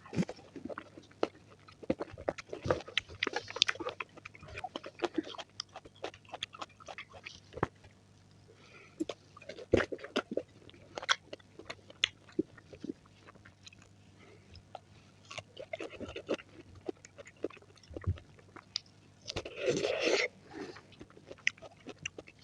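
Close-miked fruit eating: biting and chewing, with many short wet clicks and smacks of mouth and teeth. A denser, louder crunch comes about twenty seconds in.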